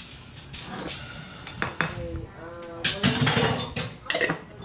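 Utensils and dishes clinking and knocking in a scatter of short sharp hits, busiest about three seconds in.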